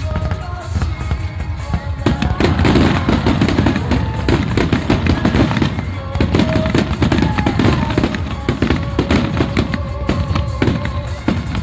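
A rapid barrage of fireworks bursting and crackling, growing dense about two seconds in, with music playing underneath.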